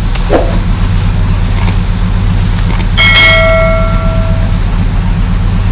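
An off-road buggy's engine runs steadily. Two light clicks follow, and about three seconds in a bright bell ding rings out and fades: the click-and-bell sound of a subscribe-button overlay.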